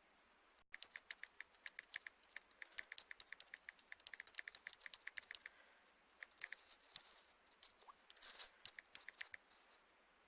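Faint, rapid light clicking, several clicks a second for about five seconds, then sparser clicks.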